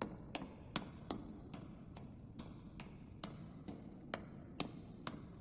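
Footsteps walking at an even, unhurried pace, about two and a half steps a second, each a sharp click over a faint low hum.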